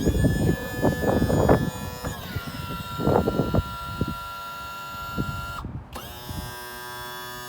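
Outboard motor's electric power tilt-and-trim unit running with a steady whine. Its pitch drops slightly about two seconds in as the load changes. It stops just before six seconds and starts again straight away at a different pitch.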